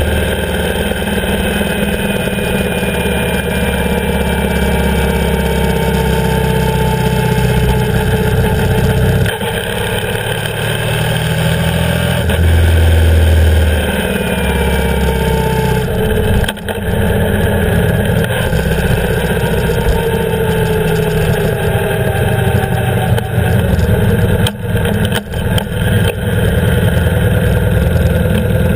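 BMW R 1150 GS's air/oil-cooled boxer twin running under way, its pitch gliding up and down with the throttle. The engine note dips briefly around nine and sixteen seconds in and several times near the end.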